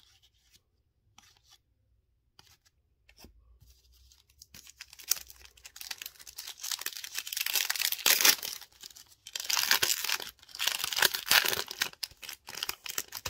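Foil trading-card pack wrapper being torn open and crinkled by hand, in repeated loud crackling tearing bursts that begin about five seconds in. Before that there are only a few light clicks of cards being handled.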